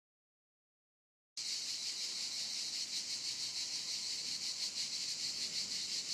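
Dead silence, then about a second and a half in a steady high-pitched hiss with a fine, rapid flutter cuts in and holds.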